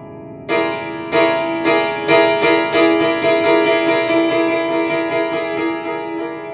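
Upright piano, its upper front panel removed to bare the hammers and strings, played freely by hand. After a quiet held chord, a run of repeated struck notes and chords begins about half a second in, two to three a second, then slowly fades.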